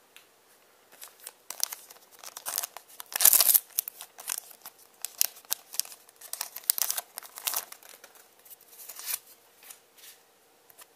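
Foil trading-card booster pack crinkling and tearing as it is opened by hand, the sharpest rip about three seconds in, followed by lighter crinkling of the wrapper and cards.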